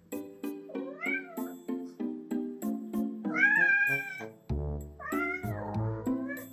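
Kitten meowing three times, the longest and loudest call about halfway through, over background music of evenly paced plucked notes.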